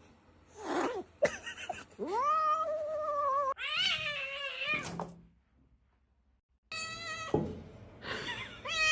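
Cat meowing in a series of long, drawn-out yowls, about four calls, each holding a steady pitch after a quick rise, with a dead-silent break about two-thirds of the way through.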